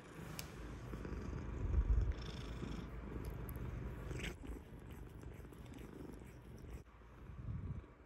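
Orange tabby cat purring steadily close up while its chin and neck are scratched, a contented purr that swells about two seconds in.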